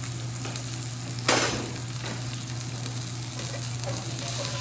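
Coho salmon fillet sizzling steadily in bacon fat in a skillet as it finishes cooking, with one sharp clack about a second in.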